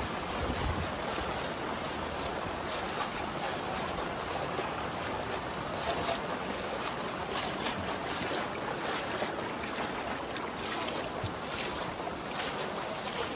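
Fast-flowing floodwater rushing and splashing through a flooded street: a steady, even rush of water, with wind on the microphone near the start.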